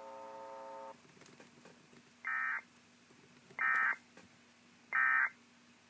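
Emergency Alert System end-of-message signal: three short, raspy SAME data bursts about 1.4 seconds apart. Before them, a steady buzzy tone cuts off about a second in. A faint steady hum runs underneath.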